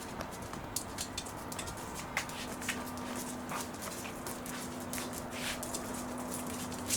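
Welsh corgi sneezing repeatedly, several short sharp bursts spread out, over a faint steady low hum.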